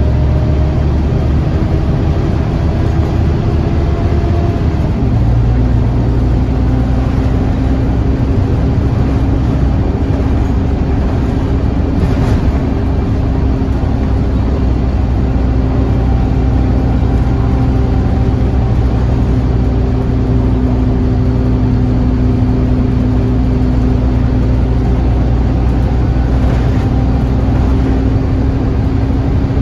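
Scania N230UD OmniCity bus's five-cylinder diesel engine and transmission heard from inside the cabin, pulling under load as the bus drives along. About five seconds in the engine note drops in pitch and grows heavier as the gearbox changes up, then holds steady.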